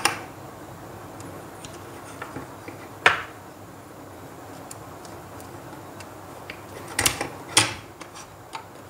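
Sharp clicks and taps of a small screwdriver working the terminal screws of plastic two-way switches, with the switches handled on a tabletop. Four clicks over several seconds, two of them close together near the end, over a faint steady hiss.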